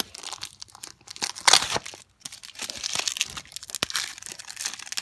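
Foil trading-card pack being torn open and its wrapper crinkled by hand, in irregular rustles with the loudest rip about a second and a half in.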